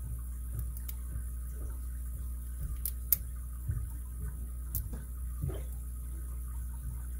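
A lock pick working the pins inside a Master Lock M15 padlock under tension wrench pressure: scattered faint clicks and scrapes, the sharpest click about three seconds in, over a steady low hum.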